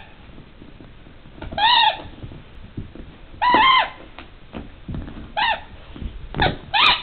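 A squeaky plastic hamburger dog toy squeaking as a dachshund bites down on it: several short squeaks, each rising and falling in pitch, about one every second or two. Soft knocks come between them as the dog chews and shakes the toy.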